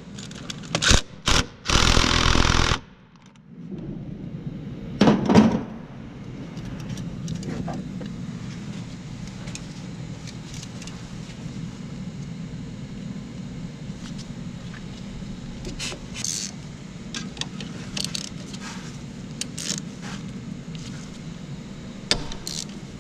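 Impact wrench hammering on a nut in a few short bursts and then a run of about a second, followed by a steady low hum with scattered light metallic clicks and taps.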